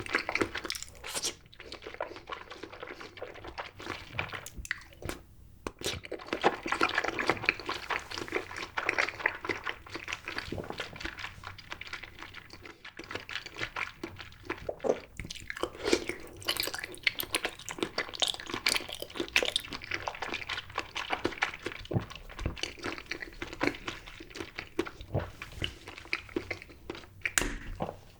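Close-up eating of Kyoho grape jelly: wet chewing, squishing and mouth smacks in a steady run of quick, irregular clicks.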